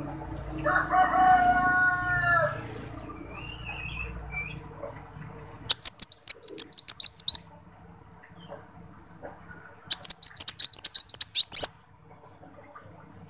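Male sunbird (kolibri wulung) singing two loud bursts of rapid, high-pitched twittering notes, each about a second and a half long and about four seconds apart. A fainter, lower drawn-out call that falls slightly in pitch sounds near the start.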